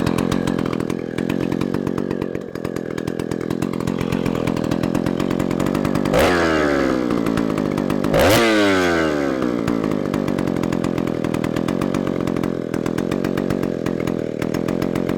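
Stihl Contra two-stroke chainsaw engine running steadily, revved sharply twice, about six and eight seconds in, each time dropping back to its steady running speed.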